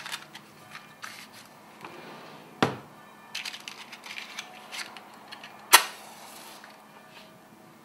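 Handling noises from small objects: two loud, sharp knocks, one about a third of the way in and the loudest about three quarters through, with a run of lighter clicks and rattles between them.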